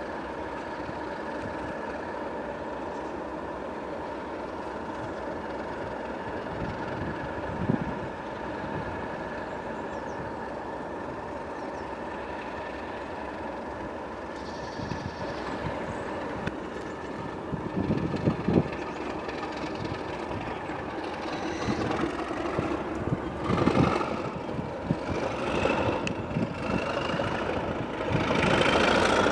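Class 37 diesel locomotive's English Electric engine running steadily as it approaches at the head of a train, growing louder as it nears, with a few knocks along the way. Near the end a rising whistle climbs over the engine note as it takes more power.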